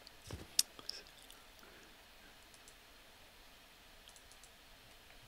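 Computer mouse clicks: a dull thump, then two sharp clicks within the first second, and a few faint ticks about four seconds in, over quiet room tone.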